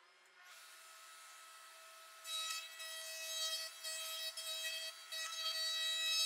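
Freud router in a router table running at speed with a steady whine. From about two seconds in, it grows louder and rougher as the 3/4-inch round-over bit cuts a wooden strip down into a round dowel.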